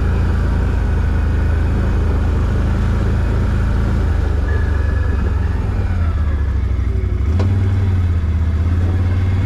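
ATV engine running steadily at low speed. A single short click comes about seven seconds in, after which the engine note shifts slightly.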